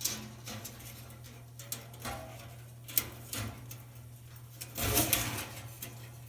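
Light metallic clicks and scraping from a dryer's coiled wire heating element being handled and threaded onto its metal housing, with a louder scrape about five seconds in, over a steady low hum.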